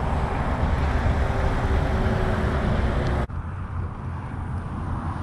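Wind buffeting the microphone: a steady low rumble with a rushing hiss above it. About three seconds in, the hiss drops abruptly and a lower rumble carries on.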